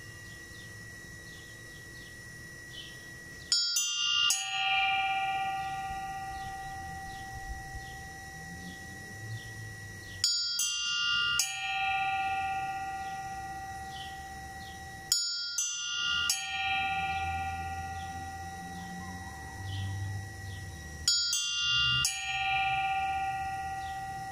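Church bells tolling a death knell (toque de difunto). Two bells are struck in quick succession, under a second apart, four times about six seconds apart, each pair left to ring out and fade.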